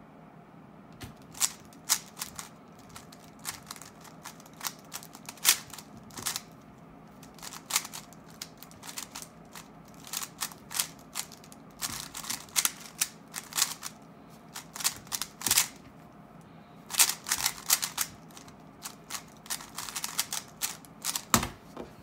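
Plastic 3x3 speedcube being turned fast by hand: rapid clicking and clacking of the layers in quick irregular flurries during a roughly 20-second solve, starting about a second in, with a thump near the end.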